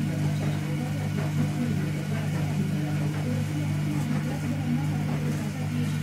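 Small electric motor humming steadily, the motor of a homemade cat-teaser toy that turns a rod to swing a feathered toy bird on a wire.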